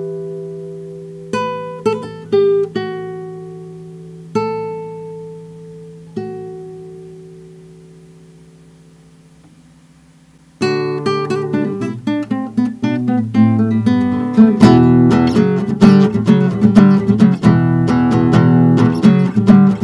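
Nylon-string classical guitar: a few single plucked notes over a held low note, each left to ring and fade for about ten seconds. About halfway through, a fast, busy passage of picked and strummed notes starts and continues to the end.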